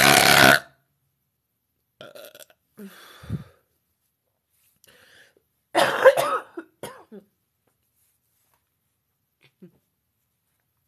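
A woman's deliberate, loud, long belch that cuts off about half a second in, followed by faint mouth noises and a second, shorter, broken-up burp about six seconds in.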